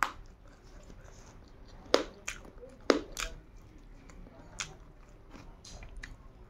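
A person chewing a mouthful of rice and egg-and-paneer curry close to the microphone, with sharp wet mouth and lip smacks, the loudest about two and three seconds in.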